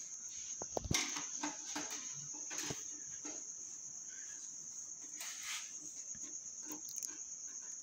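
Light clicks and taps of a screwdriver and hands working on screws in an open steel PC case, with a firmer knock about a second in. A steady high-pitched tone sounds behind it throughout.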